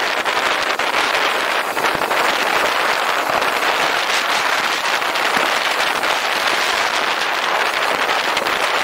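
Motorcycle riding at a steady cruise: a constant rush of wind on the camera microphone mixed with the bike's engine and road noise, with no change in speed.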